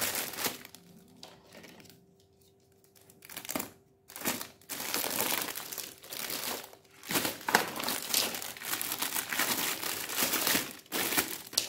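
Clear plastic packaging bag crinkling as a toy mask is handled and unwrapped. It goes quiet for a few seconds about a second in, then crinkles almost without a break from about four seconds on.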